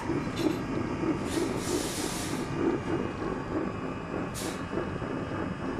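Diesel parking heater running, its burner giving a regular throbbing pulse about three times a second. The owner is unsure of this pulsing and wonders whether it is just how the burner works. Two bursts of hiss come through, one starting about a second in and a shorter one after four seconds.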